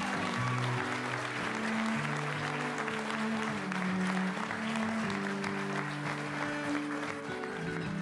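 A crowd of wedding guests applauding and clapping, over music of long, low held notes; the clapping thins out near the end.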